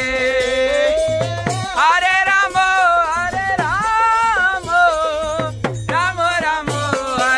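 Devotional kirtan in a train coach: a man's voice sings a long, held melody over a hand drum beating a steady rhythm, with a jingling, rattling percussion on top.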